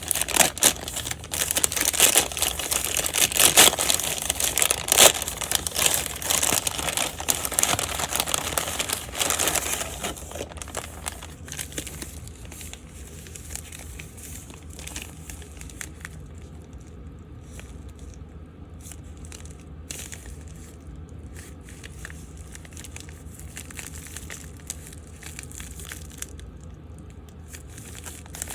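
Packaging being handled and crinkled, loud and dense for about the first ten seconds, then quieter handling with scattered small clicks.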